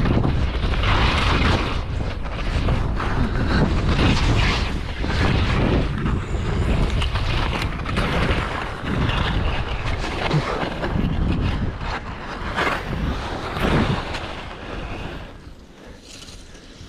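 Wind buffeting the microphone of a skier moving downhill, a constant low rumble, with surges of hiss and scrape from skis carving on snow. It quietens about 15 seconds in as the skier slows.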